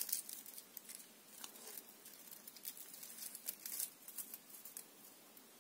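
Black tape being peeled off a printed sticker label strip: a faint run of small crackles and rustles as the adhesive separates, dying away near the end.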